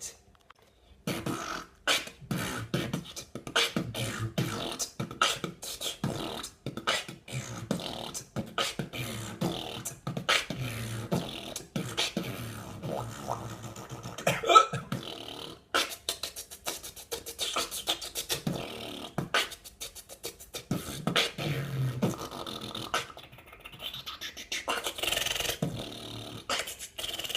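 A man beatboxing: a dense, fast rhythm of mouth-made drum sounds starting about a second in, with a single hiccup breaking into it.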